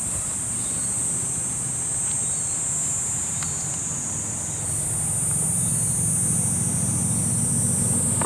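A steady high-pitched insect chorus, with a low rumble underneath that grows louder about halfway through.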